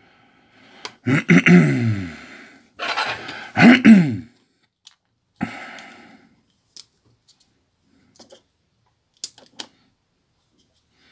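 A man makes two wordless vocal sounds, each falling in pitch, about a second and three seconds in. A few faint short clicks of plastic phone housing parts being handled follow.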